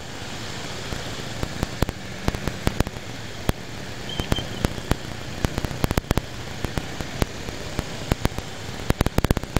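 Steady engine and road noise of slow, jammed traffic, broken by many irregular sharp crackles throughout.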